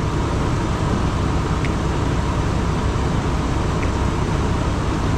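Truck engine idling steadily, a continuous low rumble.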